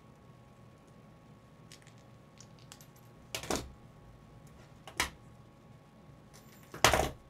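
Hand tools, scissors and pliers, handled and set down on a wooden workbench: a few faint clicks, then three sharp clattering knocks, the loudest near the end.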